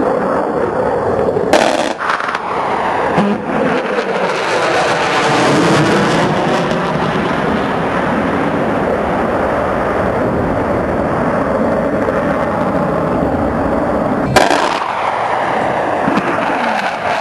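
Jet noise from an F/A-18 Hornet's engines as it flies past at low level: a loud, continuous roar whose pitch sweeps slowly up and down. Two sudden sharp cracks cut through it, one about a second and a half in and a louder one about thirteen seconds later.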